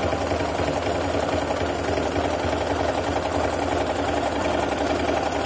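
Singer Promise electric sewing machine running steadily at speed, the needle working a decorative stitch pattern through fabric with a fast, even clatter.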